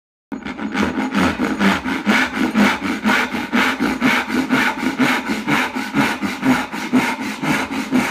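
Lie-Nielsen rip-cut dovetail saw cutting into a wooden board: a steady run of quick, even back-and-forth strokes that starts about a third of a second in and stops near the end.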